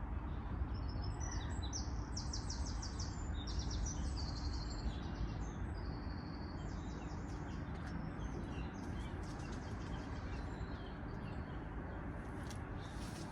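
Small songbirds singing fast trilling phrases, busiest in the first half, over a steady low rumble.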